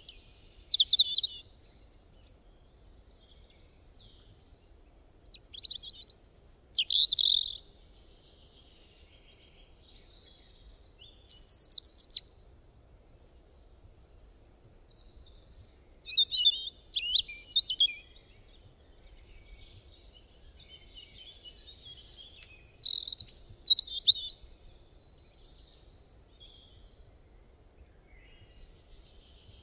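A songbird chirping and trilling in short phrases of a second or two, roughly every five seconds, with a fast trill about eleven seconds in.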